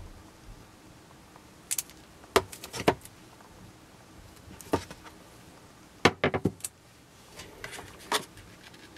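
Sharp taps, clicks and knocks from an iPad and its cardboard box and insert being handled and set down, coming in several short clusters with quiet between them.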